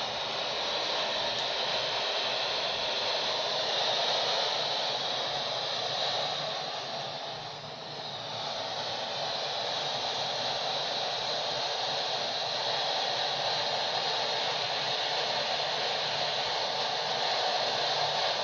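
Steady static hiss from a Uniden handheld CB radio's speaker with the squelch open, as it steps through empty channels; the hiss dips briefly about eight seconds in.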